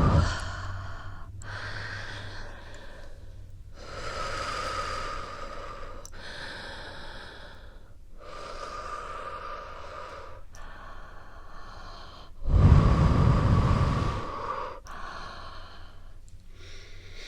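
A woman breathing slowly and deeply in and out, close to a sensitive microphone: about eight long breaths, each around two seconds. One breath about two-thirds of the way through is much louder, with a low rushing rumble.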